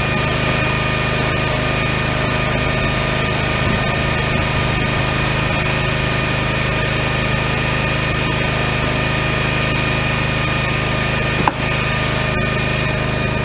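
Regon R1 firewood processor running steadily at constant speed, with one sharp knock near the end.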